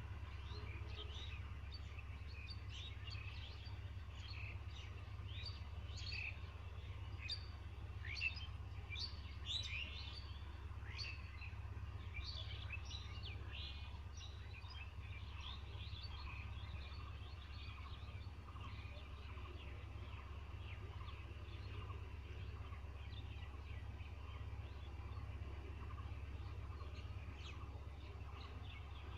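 Birds chirping: many short, quick calls, busiest in the first half and thinning out later, over a steady low hum.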